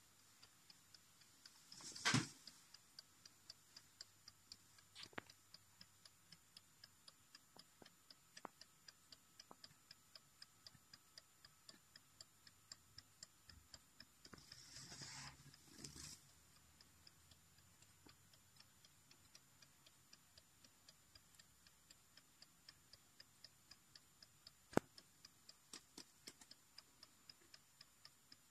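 Faint, quick, even ticking of a mechanical wall clock movement. A few louder knocks come near the start and near the end, with a short rustle about halfway through.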